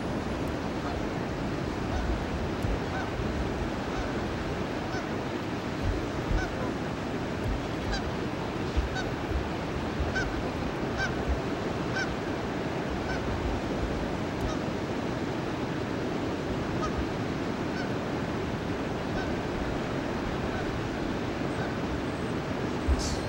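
Canada geese giving short honks over and over, roughly one a second, over a steady rushing background noise.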